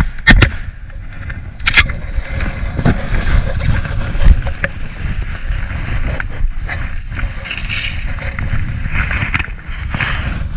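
Wind rumbling on the microphone, with rustling of the layout blind's canvas against the camera, and a couple of sharp knocks in the first two seconds.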